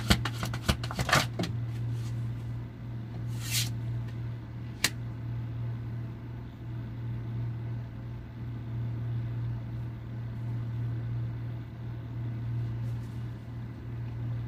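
A deck of tarot cards shuffled by hand: a quick run of card clicks in the first second or so, a short brushing swipe a few seconds in and a single tap, over a steady low hum.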